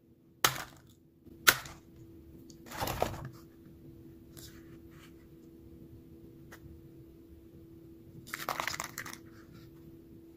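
Crisp, hollow batter shell of deep-fried perilla leaves cracking and crunching as fingers break it open: two sharp cracks about a second apart near the start, a longer crackle around three seconds in, and another crackly break near the end. A faint steady hum runs underneath.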